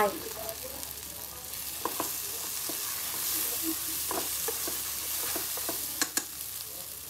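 Silkworms dry-frying in a non-stick pan with a steady high sizzle, stirred with tongs that knock and scrape against the pan every so often.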